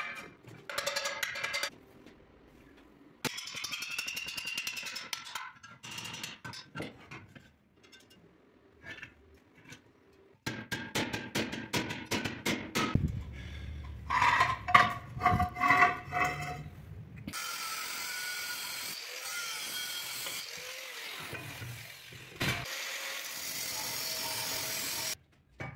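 A run of edited steel-working sounds: scraping and rapid clicking, then a string of loud ringing metallic knocks. For the last several seconds an angle grinder's cutting disc runs steadily through steel bar stock, cutting a slot.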